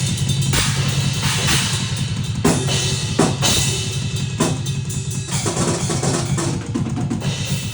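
Drum-like percussion: a run of repeated hits over a steady low hum underneath.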